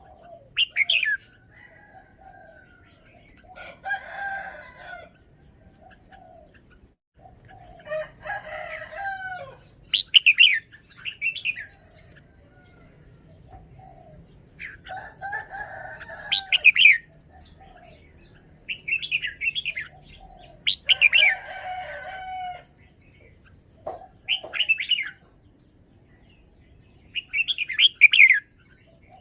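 Red-whiskered bulbul singing: short, bright, warbling whistled phrases repeated every few seconds, with lower, longer calls from other birds in between.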